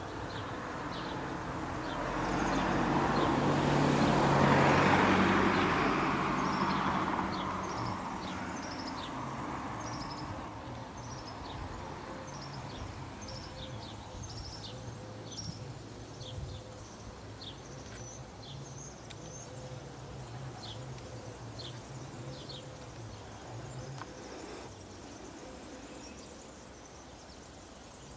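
A motor vehicle passes close by, its engine and road noise swelling to a peak about four to five seconds in and fading over the next few seconds, after which a low engine hum carries on. All the while a bird repeats short, high, falling chirps.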